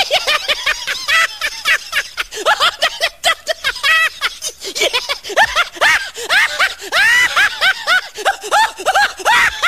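High-pitched snickering laughter in rapid short bursts, several a second, going on without a break.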